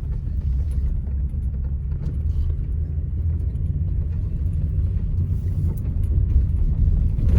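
A car driving along, its engine and road noise making a steady low rumble.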